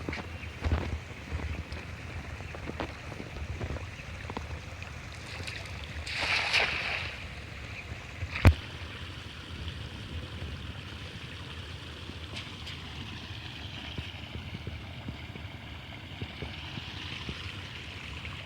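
Water and wind noise, with a brief splashing swell about six seconds in and a single sharp knock about eight and a half seconds in.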